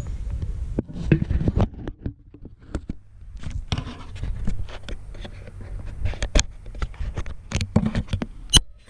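Irregular clicks, taps and scrapes of a GoPro camera being handled and snapped into its frame on a handlebar mount, with a sharper click near the end.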